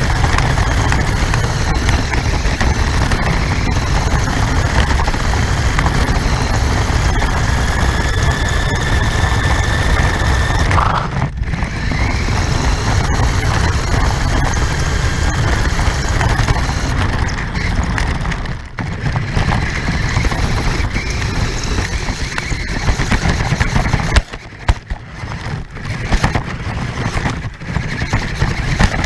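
An RC car driving with the camera riding on it: a loud, steady rattle and rush from the chassis and wheels, with a thin motor whine in the middle. The noise drops out briefly a few times, with several short stops near the end.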